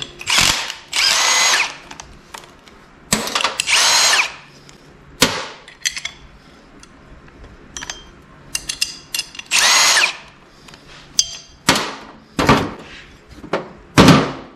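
Cordless impact driver running bolts out of nuts welded onto steel brackets, in three runs of about a second each, its motor pitch rising and then falling. Short metallic knocks between the runs.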